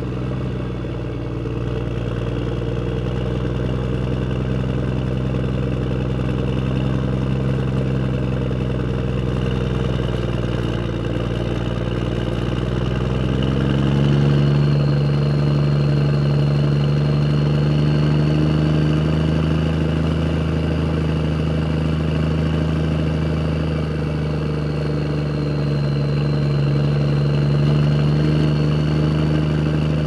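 A motor vehicle engine running steadily, stepping up in pitch and loudness about halfway through, with a faint high whine from then on.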